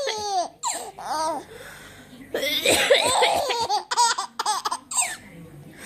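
A baby laughing in repeated bursts, mixed with a woman's coughs.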